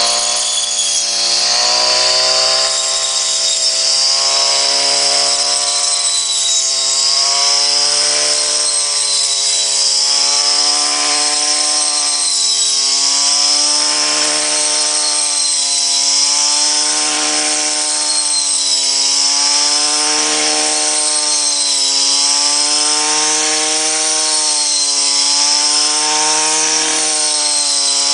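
Small two-stroke Stihl engine of a homemade wheat harvester running steadily at high speed, its pitch dipping and recovering about every two seconds.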